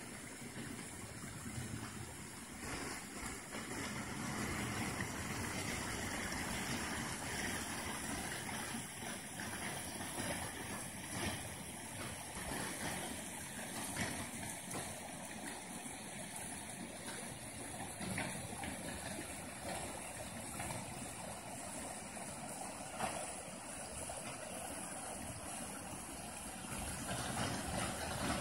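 Creek water running and splashing over a fallen log in a small cascade: a steady rush of water noise that grows a little louder near the end.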